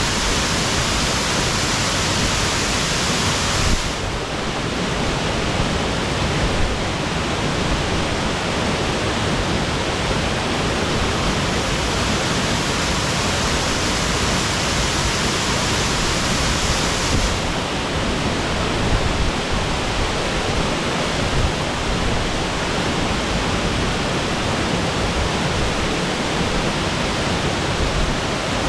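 Waterfall crashing steadily into its pool, a dense continuous rush of water.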